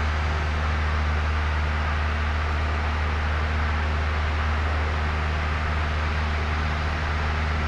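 Steady cabin drone of a small single-engine piston airplane in cruise flight: a constant low engine and propeller hum under an even rush of air noise.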